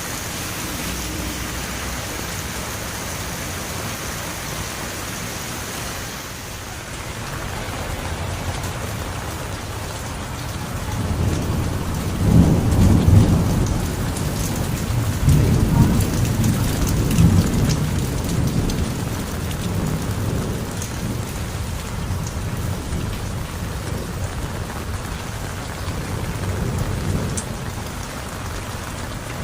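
Heavy rain falling steadily, with a long low roll of thunder that builds about a third of the way in, is loudest for several seconds, then rumbles away.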